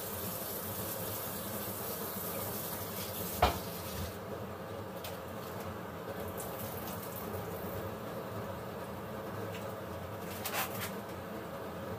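Water running from a kitchen tap, shut off about four seconds in with a sharp knock; afterwards a low steady background with a brief clatter near the end.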